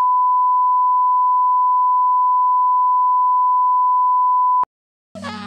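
Steady 1 kHz line-up test tone, the 'bars and tone' reference signal at the head of a video master, cutting off sharply about four and a half seconds in. After half a second of silence, music starts just before the end.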